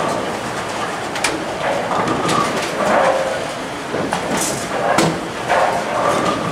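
Bowling alley din: scattered sharp clatters, like pins falling and balls striking on nearby lanes, over a steady background murmur of the hall.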